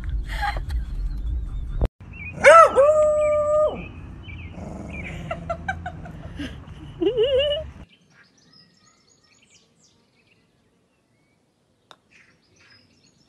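Low road rumble of a car for about two seconds. Then a dog howls through a fence: one long held howl, followed by shorter whines and a rising howl near the end of the sound.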